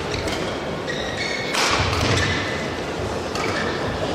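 Badminton doubles rally: rackets strike the shuttlecock about three times, the loudest about one and a half seconds in. Short squeaks of court shoes on the mat come between the hits, over a steady murmur of the arena.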